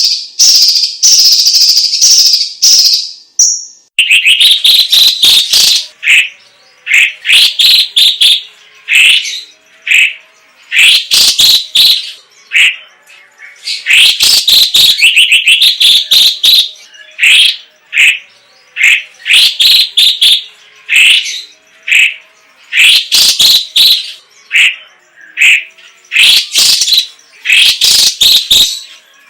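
Cucak ijo cina (cucak cungkok), a leafbird, singing loudly: a harsh rasping chatter for the first few seconds, then a rapid run of short varied whistled phrases with brief gaps.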